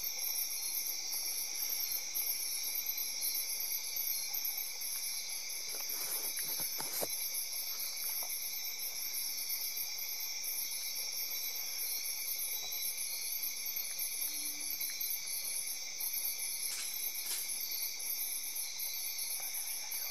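Insect chorus of crickets trilling steadily at several pitches, the highest trill pulsing rapidly. A few faint clicks about six and seven seconds in.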